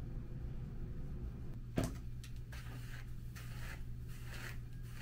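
A steady low hum, with a single knock about two seconds in followed by a few short rustles and scrapes of handling.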